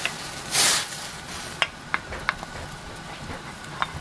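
Water in a steel pan boiling on a gas stove, with scattered sharp pops, as flour is tipped into it from a bowl. A brief, louder rushing hiss comes about half a second in as the flour heap slides in.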